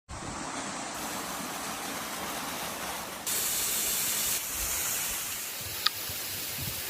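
Steady hissing noise, growing louder and brighter for about a second past the middle, with one sharp click near the end.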